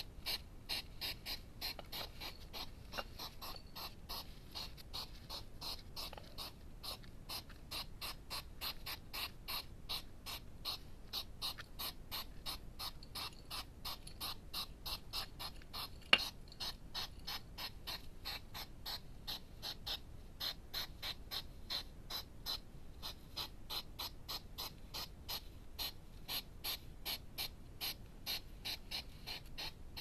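Hedgehogs chewing at a food bowl: a steady run of sharp, crisp clicks and smacks, about three a second, with one louder click about sixteen seconds in.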